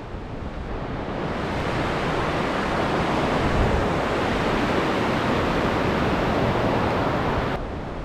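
Steady rush of water churning out of a dam's outflow into the river below. It swells over the first couple of seconds and cuts off suddenly near the end.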